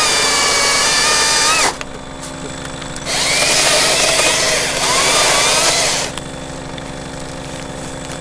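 Stihl battery-powered chainsaw cutting through a fallen tree's branches in two runs: a steady electric motor whine that dips in pitch and cuts off after under two seconds, then a second run of about three seconds, lower and wavering as the narrow chain bites into the wood.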